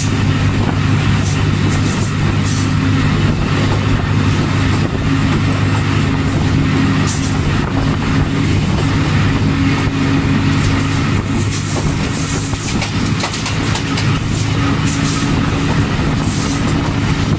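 Diesel engine of a ZCU 20 (GE U20C) diesel-electric locomotive running with a steady, deep drone, heard close up over the rumble and hiss of the moving train.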